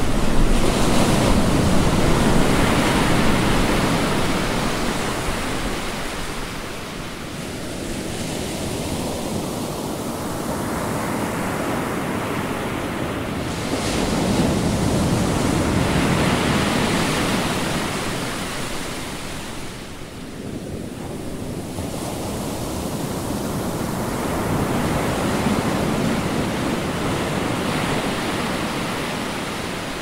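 Ocean waves crashing and surging: a rushing sound that swells and falls back three times, with no other clear sounds.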